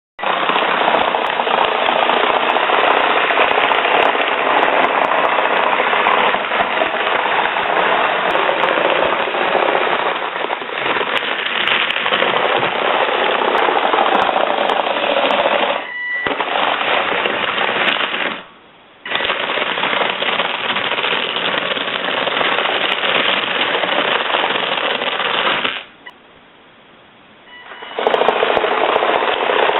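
Motorised LEGO bulldozer being driven by remote control: its electric motors, plastic gears and tracks give a dense, rattling clatter. It stops briefly about two-thirds of the way in, then again for about two seconds near the end, before starting up once more.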